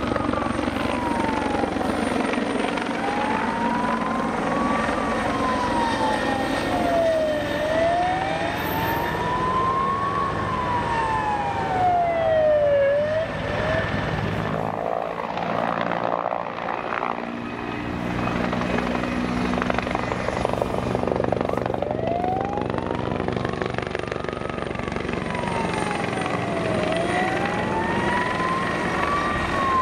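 Bell 412 helicopter flying overhead, its rotors and twin turbine engines running steadily. A whining tone sweeps up and down every few seconds, and the low rotor sound thins briefly about halfway through.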